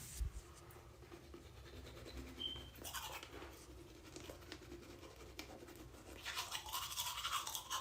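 Toothbrush scrubbing teeth, faint at first and louder about six seconds in.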